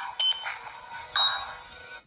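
Nokia N97 ringtone playing through the phone's built-in stereo speakers: an electronic melody of separate notes, thin and without bass.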